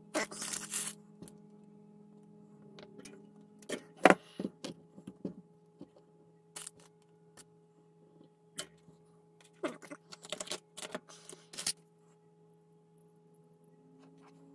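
Small clicks, taps and rustles of hands handling wires and small parts during model wiring work, coming in clusters with the sharpest click about four seconds in, over a steady low hum.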